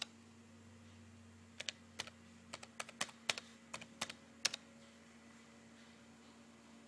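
Typing a password on a PowerBook 3400c laptop keyboard: a quick run of about fifteen light keystrokes, clustered between about one and a half and four and a half seconds in, ending with the key press that submits the login. A faint steady hum sits underneath.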